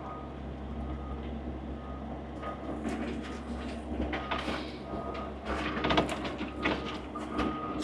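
Diesel engine of a compact digging machine running steadily while its hydraulics work the stuck machine in mud, with scattered knocks and clicks over the engine sound.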